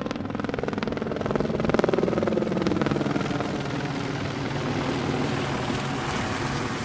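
Helicopter flying overhead carrying an underslung load on a sling line, its rotor blades chopping rapidly. It grows loudest about two seconds in, then eases off a little as it passes.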